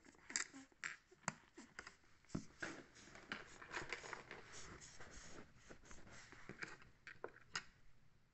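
Faint, irregular clicks and light scraping of plastic Lego bricks being handled and pressed onto a baseplate, with a few sharper clicks.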